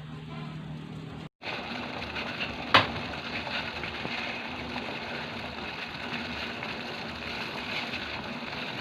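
Pot of herbal decoction (water with ginger, garlic, calamansi and oregano) boiling steadily, a continuous bubbling hiss. A single sharp click about three seconds in.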